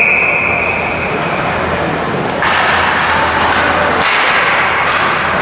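Ice hockey rink sound: a single steady high tone cuts in sharply and fades after about two seconds. About two and a half seconds in, a louder scraping hiss of skates and sticks on the ice takes over as play resumes off the faceoff.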